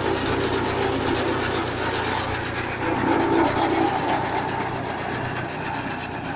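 Tractor reaper working: the reciprocating cutter bar and its drive clattering in a fast, even rhythm over the steady running of the John Deere 5055E tractor's diesel engine, a little fainter near the end.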